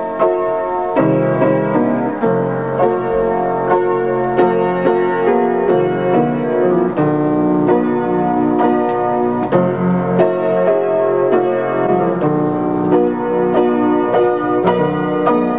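Solo piano playing a melody over sustained chords, with a steady, flowing run of struck notes.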